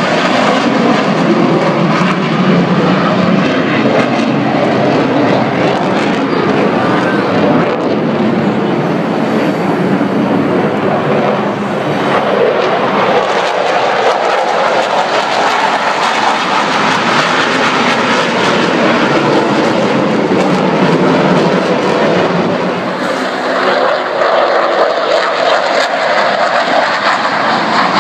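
Jet aircraft taking off at full power, a loud, steady engine roar that dips briefly twice. The jet is a swept-wing, fighter-type aircraft climbing steeply.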